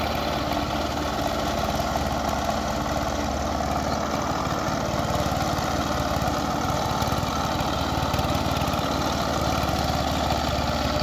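Single-cylinder diesel engine of a two-wheel power tiller running steadily as it works through a flooded paddy field.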